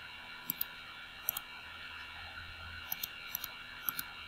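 Computer mouse clicking several times, sharp clicks that often come in quick pairs, over a faint steady hum.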